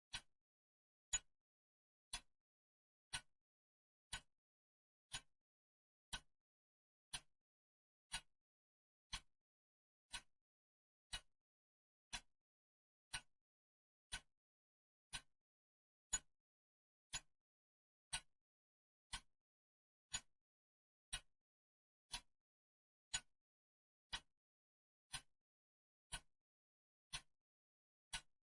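A clock ticking steadily, one sharp tick a second, with silence between the ticks.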